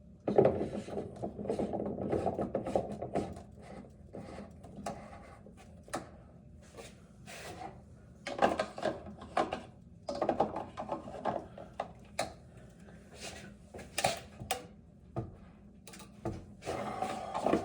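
Plastic water-filter housings and cartridges being handled and screwed in: irregular knocks, clicks and rubbing of plastic on plastic, busiest in the first few seconds and again midway.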